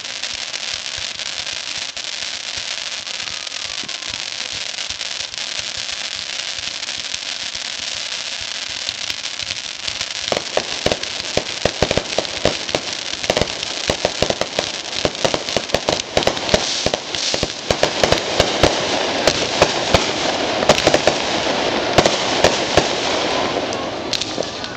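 Consumer fireworks: a ground fountain hissing steadily, then from about ten seconds in a dense run of rapid crackling pops that grows louder near the end.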